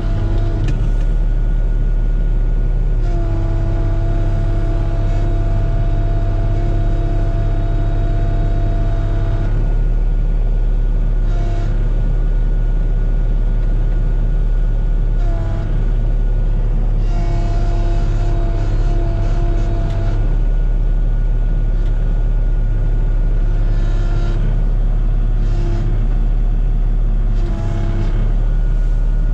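Komatsu PC16 mini excavator's diesel engine running steadily under working load, with a whine that comes and goes as the hydraulics are worked. Several short clunks are spread through it.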